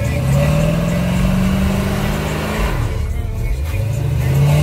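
Engine of a 1970s Chevrolet donk revved hard while doing a burnout. The pitch climbs for about two and a half seconds, drops, then climbs again near the end.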